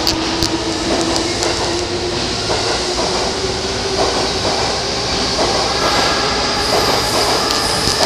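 An electric train moving on a track at the station. Its motor whine rises slightly in pitch over a steady rumble of running noise.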